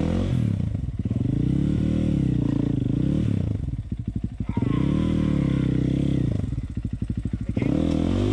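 KTM 500 single-cylinder four-stroke dirt bike engine revved hard again and again, its pitch climbing and falling, dropping twice to a low idle between surges: the rear wheel is spinning without grip in the creek.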